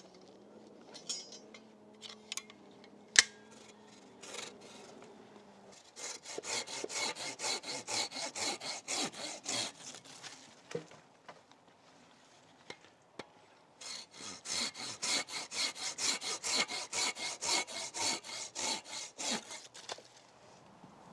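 Hand saw cutting through hazel wood in two bouts of quick back-and-forth strokes, about four strokes a second, starting about six seconds in and again about fourteen seconds in. Before the sawing come a few light knocks and one sharp crack about three seconds in, the loudest sound.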